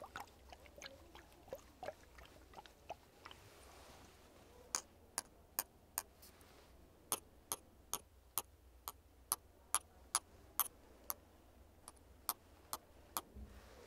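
Fingernails tapping on glass perfume bottles: light scattered clicks of handling at first, then from about five seconds in a run of sharp taps, about two a second.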